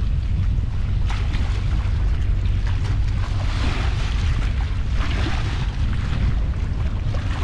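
Wind buffeting the microphone in a steady low rumble, over choppy river water lapping and splashing, which swells twice around the middle.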